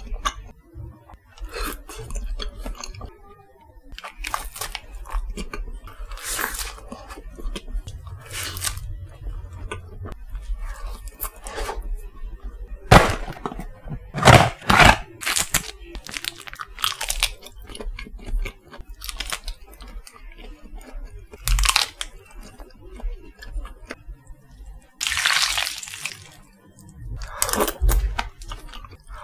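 Close-up eating sounds: crisp food bitten and crunched, with irregular sharp cracks and chewing between bites. The loudest crunches come about halfway through.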